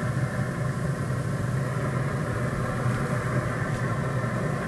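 Pit Boss Pro Series 1100 pellet grill running while lit, its motor and fan giving a steady low hum.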